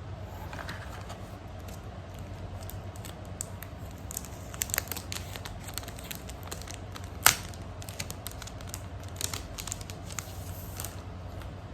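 Packaging being handled and opened by hand: scattered crinkles and small clicks, with one sharp click about seven seconds in, over a steady low hum.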